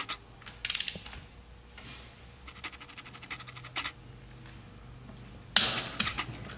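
Ratchet wrench clicking in short quick runs as the cylinder head bolts of a Polaris Sportsman 700 engine are tightened, then a sharper, louder click near the end.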